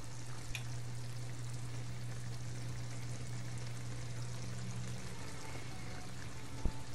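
Hilsa pieces cooking in mustard gravy in a pot on the stove: a steady sizzling bubble over a low hum, with a light utensil click about half a second in and a short knock near the end.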